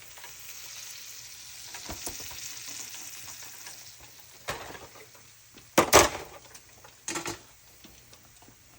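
Battered pork chops frying in hot grease in a cast iron Dutch oven, a steady sizzle that fades after about four seconds. Three sharp knocks follow, the loudest about six seconds in.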